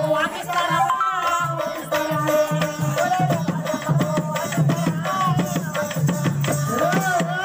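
Live Indian folk music: drums keeping a steady, fast beat under a harmonium melody and an ornamented singing voice.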